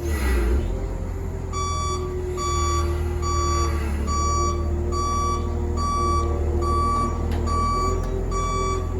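Excavator travel alarm beeping steadily, a little over one beep a second, starting about one and a half seconds in, over the low rumble of the running engine. A short rush of noise comes at the very start.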